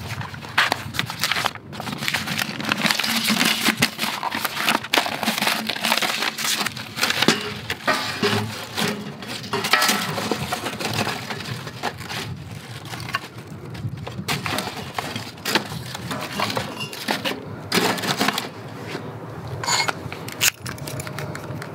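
Thin wood shavings rustling and split kindling sticks clacking against each other and the walls of a steel fire pit as they are laid in by hand, with many small knocks throughout.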